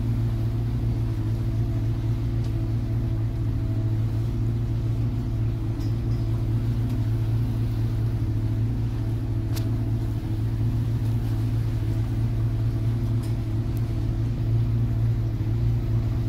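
Houseboat's twin engines running steadily under way, a deep even drone heard inside the helm cabin.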